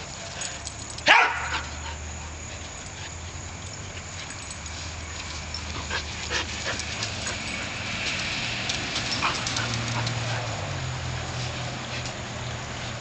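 Dogs at play, with one loud, sharp bark about a second in, then scattered short sounds of play.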